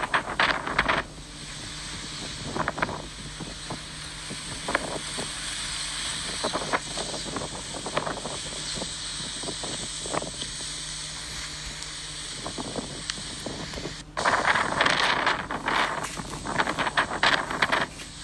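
Hurricane Ian's wind blowing with a steady hiss, broken by brief rough gusts; for the last four seconds a strong gust buffets the microphone loudly.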